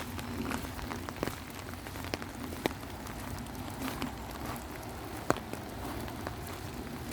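Steady rain, with individual drops tapping sharply close by every so often.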